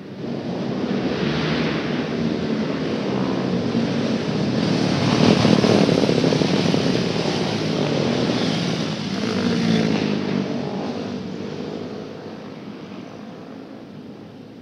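A pack of 250cc Kage kart engines running past together, swelling louder as the karts come by about five seconds in and again around ten seconds, then fading away near the end.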